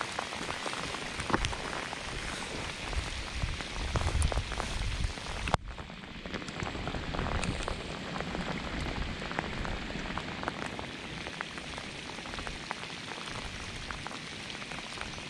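Heavy rain falling on a lake surface and rocky shore: a steady hiss dotted with sharp ticks of nearby drops, with a sudden break about five and a half seconds in.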